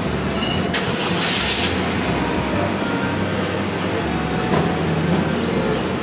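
Steady low rumble of a motor vehicle, with a sharp click a little under a second in and a brief hiss just after.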